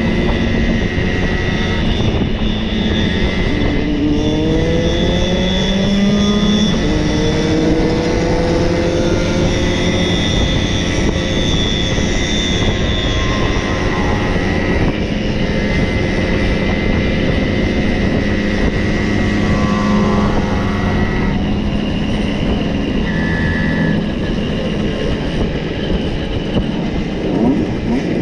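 Several Simson two-stroke mopeds running together. One engine's pitch rises as it accelerates about four to seven seconds in, while others hold a steady buzz over a constant rush of noise.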